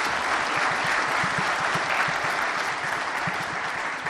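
A large audience applauding, a steady dense clapping.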